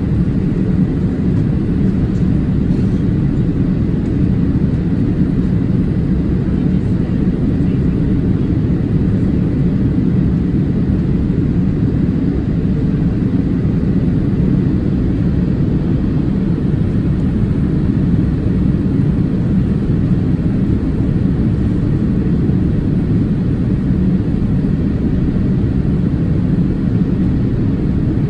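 Steady engine and airflow noise of a Boeing 787-8 Dreamliner in descent, heard inside the cabin over the wing, a low, even rush of its Rolls-Royce Trent 1000 engines and the air over the fuselage, unchanging throughout.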